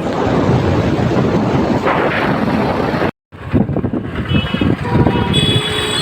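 Wind buffeting the microphone over road traffic noise from a moving vehicle. The sound cuts out for a moment about three seconds in, then the traffic noise resumes with several short, high beeps.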